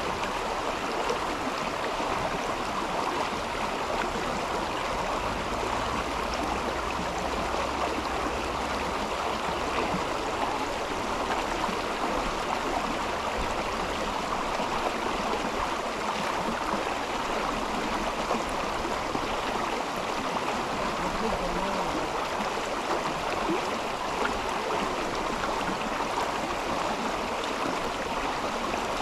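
Mountain river flowing steadily, water rushing over stones.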